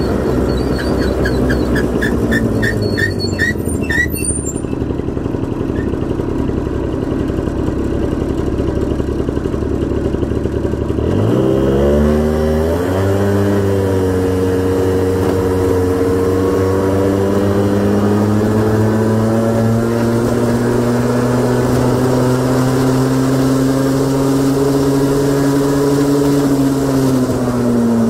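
Honda Gyro X TD01 late-model two-stroke scooter engine, heard while riding: a low idle-like rumble for about ten seconds, then a sharp rise in revs as it pulls away, followed by a steady note that climbs slowly as speed builds and drops as the throttle closes near the end. A quick run of short high chirps sounds in the first few seconds.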